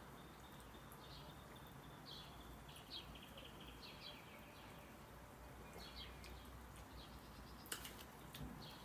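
Near silence: quiet room tone with a few faint high chirps and a brief click near the end.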